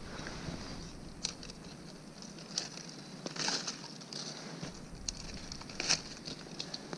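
Dry leaves and camo gear rustling and crackling as someone shifts on a leaf-littered forest floor, with a few sharp clicks, one short rustly burst midway and the sharpest click near the end.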